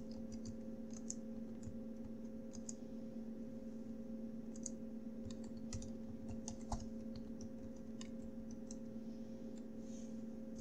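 Computer keyboard keys clicking in irregular runs as a terminal command is typed, over a steady low hum.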